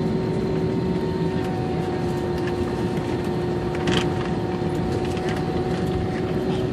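Airbus A320 heard from inside the passenger cabin while taxiing: a steady engine drone with a constant hum. A single brief click about four seconds in.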